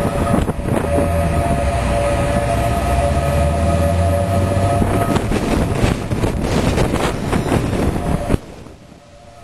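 Outdoor warning siren sounding a steady tone, warning of the tornadic storm, over gusty wind noise on the microphone. The sound drops away suddenly about eight seconds in.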